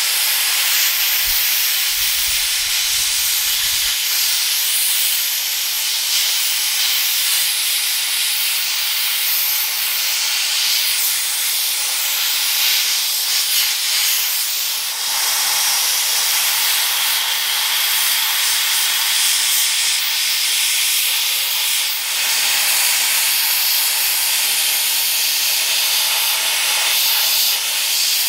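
Gravity-feed air blast gun media blasting a steel chassis frame: a steady hiss of compressed air and abrasive grit striking the bare metal.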